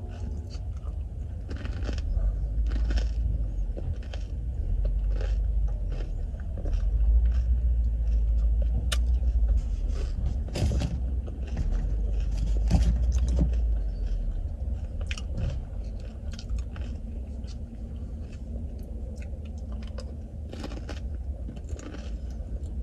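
Crisp panipuri shells crunching and being chewed close to the microphone, in a string of sharp crunches, over a low rumble.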